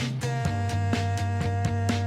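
Pop-rock band music with a keyboard part played along to it: a steady drum beat, a bass line that moves to a new note about a quarter of the way in, and a held keyboard chord.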